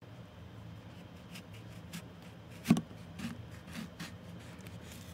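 A small knife cutting through a whole lemon on a wooden cutting board: a series of soft slicing strokes, with one sharp knock about halfway through.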